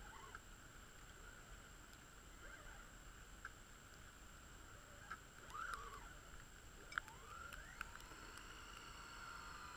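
Faint whine of a radio-controlled car's motor, rising and falling in pitch as the car speeds up and slows on snow, with a sharp click about seven seconds in.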